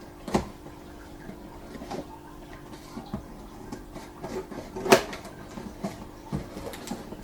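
Unboxing handling of a portable white noise machine and its packaging: scattered light clicks and taps, with one sharper knock about five seconds in, over a faint steady hum.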